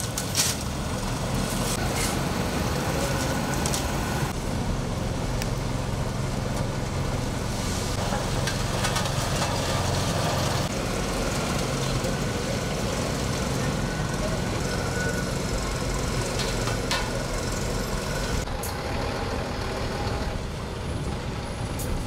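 Vehicle engines running steadily, from trucks and a road roller, with street traffic passing. A few short knocks are heard, the first just after the start.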